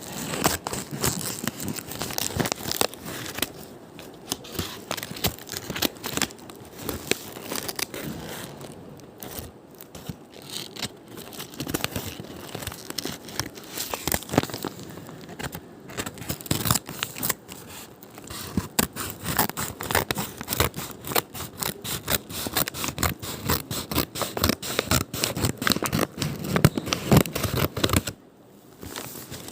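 Packaging being opened and handled by hand: a continuous run of crinkling, tearing and scraping with many small clicks, dropping briefly near the end.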